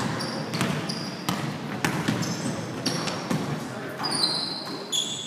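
Basketball game on a hardwood gym floor: a basketball bouncing and thudding, with several short high sneaker squeaks, under players' indistinct voices.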